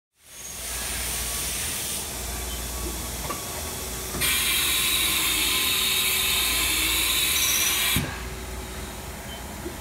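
2004 Haas TM-1 CNC vertical mill running, a steady machine hum under a hiss. The hiss grows much louder about four seconds in and drops back about eight seconds in.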